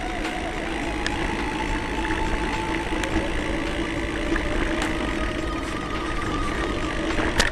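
Mountain bikes rolling over a rough dirt track, heard from a bike-mounted camera: a steady rolling hum with slowly wavering tones from the knobby tyres, and scattered clicks and rattles from the bike and mount over the bumps.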